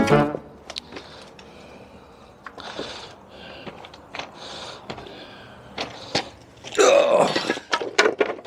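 Wrecking bar prising apart a wooden pallet: scattered knocks and short scrapes, then a louder creak and squeal about 7 seconds in as a board pulls away from its nails.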